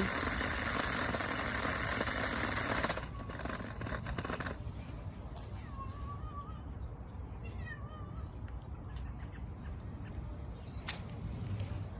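Toy remote-control car's electric motor running with a steady hiss-like whine, dropping about three seconds in and stopping a moment later. Afterwards a few faint bird chirps.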